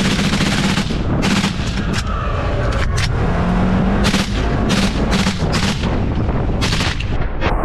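A 5.56 rifle fired in a long, rapid string of shots at uneven spacing, more than a dozen in all, over the steady running of a side-by-side UTV's engine.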